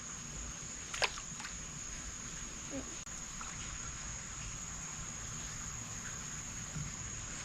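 Insects trilling outdoors: one steady high-pitched drone, with a low rumble underneath. A brief falling chirp comes about a second in.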